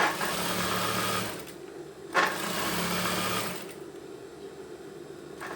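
Sewing machine stitching a blazer sleeve seam in two runs of about a second and a half each, with a short pause between.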